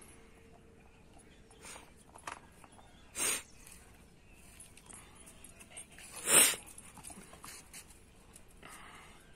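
German Shepherd puppy making two short, sharp sounds about three seconds apart, the second louder.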